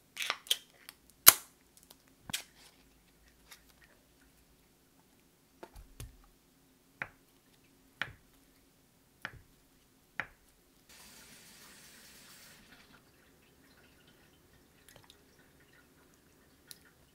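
Scattered sharp clicks and knocks of kitchen utensils and containers being handled on a counter, about one a second, with a short hiss near the middle.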